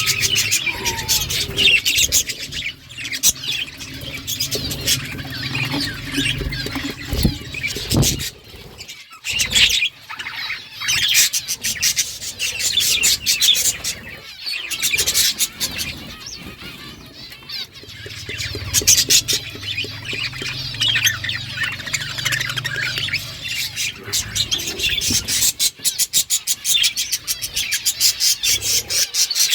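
A flock of budgerigars chirping and chattering continuously, with many quick clicks mixed in, a brief lull about nine seconds in, and a low rumble under the birds at times.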